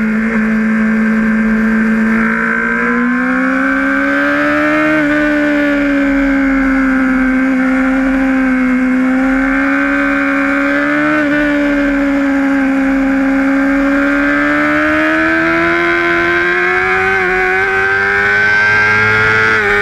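A Honda sportbike's engine running hard at high revs, heard from the rider's seat with wind rush. Its pitch sags and climbs gently with the throttle through the corners, with brief dips about five and eleven seconds in and a sharp drop at the very end.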